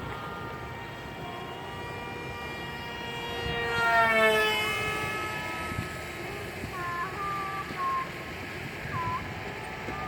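Radio-controlled Su-37 model jet making a low pass: its high whine grows louder, peaks about four seconds in, and drops sharply in pitch as it flies by and away.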